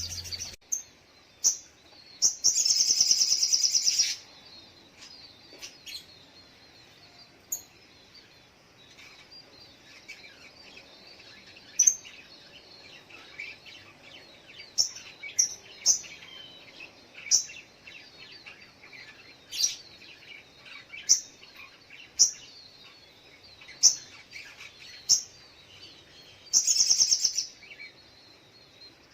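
Little spiderhunter (sogok ontong) calling: short, sharp, high single chirps every second or two, and two loud rapid trills, one about two seconds in lasting about two seconds and another near the end. Faint twittering runs underneath.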